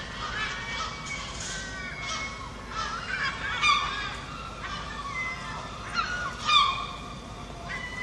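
A flock of gulls calling over and over, many overlapping harsh cries with short falling pitch, the loudest about three and a half and six and a half seconds in.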